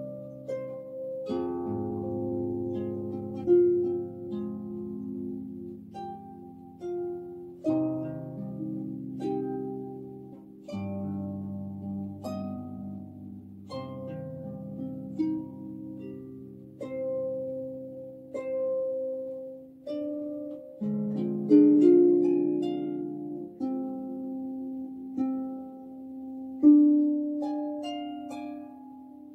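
Harp played by hand: plucked notes and chords that ring on and fade, with a few firmly plucked accents.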